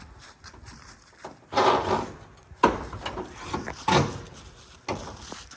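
A few irregular knocks and clatters, with sharp ones about two and a half, four and five seconds in.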